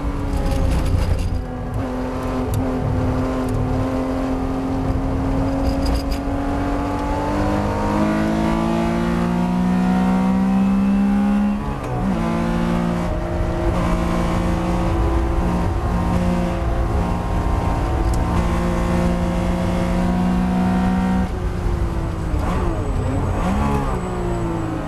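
1975 Porsche 911 2.7 Carrera's air-cooled flat-six engine racing under hard load. It holds high revs and climbs, dips sharply once at an upshift about halfway through, runs high again, then falls and picks back up near the end.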